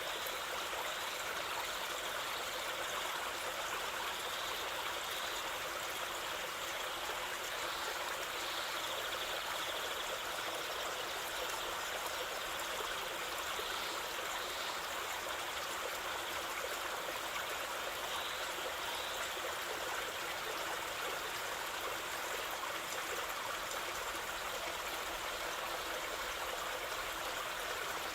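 Waterfall and stream water rushing steadily, an even hiss of falling and flowing water with no breaks.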